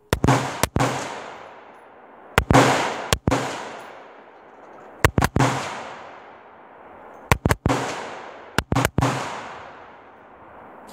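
Scoped AR-15-style rifle firing about ten shots, mostly in quick pairs a couple of seconds apart, each pair trailing off in a long echo.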